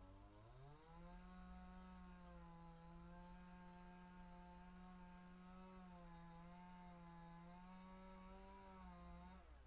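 Faint two-stroke chainsaw engine revving up over about a second and holding a steady high speed, dipping slightly twice, then cutting off just before the end.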